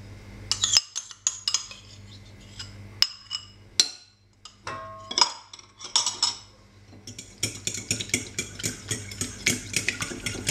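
A metal spoon scrapes and taps against glass bowls as yogurt is spooned into beaten egg, with a brief ringing tone about five seconds in. From about seven seconds a fork beats the egg and yogurt in a glass bowl, in fast, continuous clinks against the glass.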